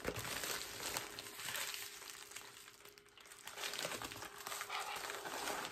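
Crinkling and rustling of a padded mailer and its paper packaging being handled and opened, with a quieter stretch about halfway through before the rustling picks up again.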